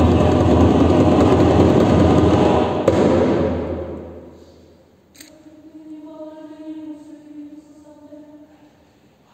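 A loud, dense rushing noise fades away over the first few seconds. Then the chamber choir sings a soft, sustained chord.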